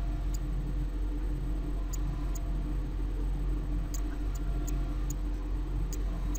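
A few faint, irregular light ticks of a stylus tapping on a tablet screen while handwriting, over a steady low hum.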